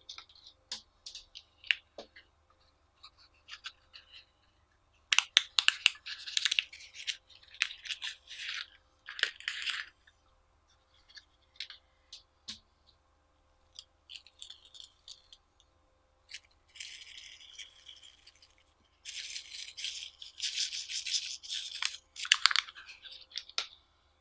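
Slime being squeezed and mixed by hand: sticky clicks and crackling in short spells, with a longer, denser run of crackling near the end.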